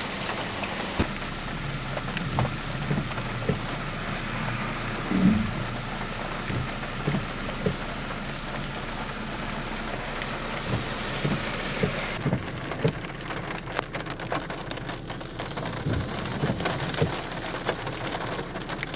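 Heavy rain pouring down, with scattered low thumps, the loudest about five seconds in. About twelve seconds in, the sound changes to close, sharp ticks of raindrops on a car's roof and windshield.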